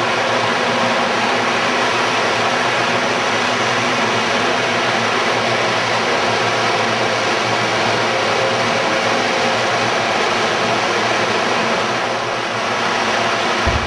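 Steady, even rushing noise with no speech.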